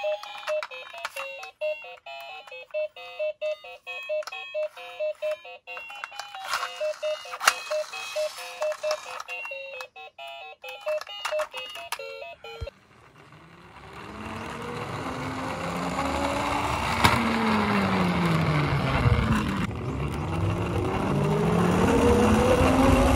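An electronic beeping tune of short repeated notes for about the first twelve seconds. Then a toy fire engine's electronic siren wails, gliding down and up in pitch over the rolling rumble of its plastic wheels on a wooden board, getting louder towards the end.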